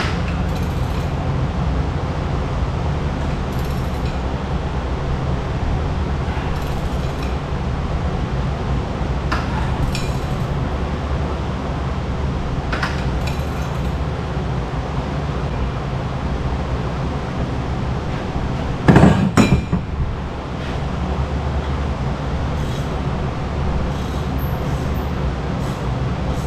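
Hand tools clinking and knocking against a generator's engine parts while bolts are worked loose: scattered short metal clinks every few seconds, with a brief cluster of louder knocks about 19 seconds in. A steady low hum runs underneath.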